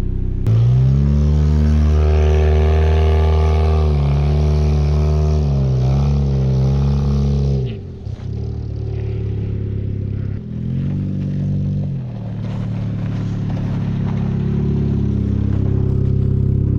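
Car engine pulling under throttle, its pitch stepping up sharply about half a second in and holding with small wavers. About eight seconds in it drops away as the throttle comes off, then runs lower and steadier, building slowly again near the end.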